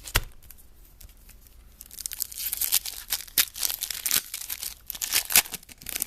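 A trading-card pack wrapper being torn open and crinkled by hand. There are a few sharp clicks at first, then a dense run of crackling and tearing from about two seconds in.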